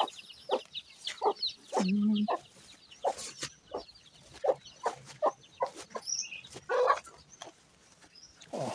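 Chickens clucking in short calls, one after another at uneven intervals, with a brief high chirp about six seconds in.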